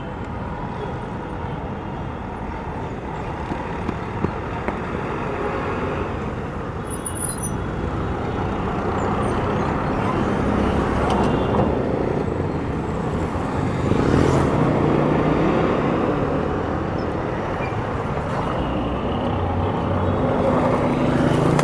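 City street traffic: a steady wash of passing cars. It grows louder through the second half as engines come closer, with a low engine hum standing out near the end.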